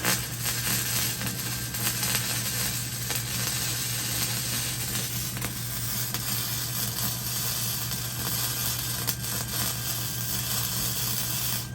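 Arc welding on steel: one continuous weld bead, a steady crackling sizzle that starts sharply and cuts off abruptly after about twelve seconds, over a constant low hum.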